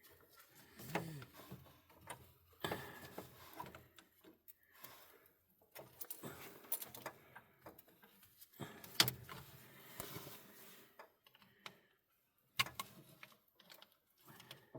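Metal clinking, scraping and knocking of a hand tool tightening a battery ground cable clamp. The sounds come in irregular bursts, with a sharper knock about nine seconds in and another near the end.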